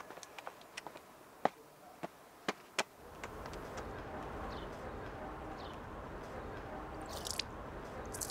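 A few scattered sharp taps, then steady outdoor background noise with short high bird chirps over it from about three seconds in.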